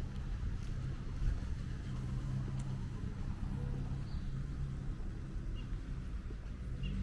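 Low, steady traffic rumble, with a few faint short bird chirps.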